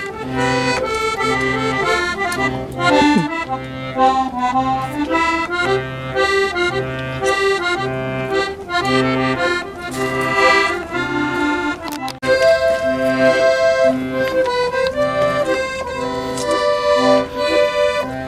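Small piano accordion played by a boy on the street: a simple melody over a steady bass-and-chord accompaniment pulsing about one and a half times a second, with a brief break about twelve seconds in.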